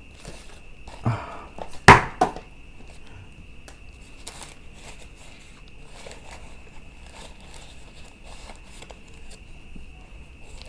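Packaging being handled on a hard surface: a few sharp knocks about one to two seconds in, the loudest near two seconds, then quieter light handling noise, over a steady faint high whine.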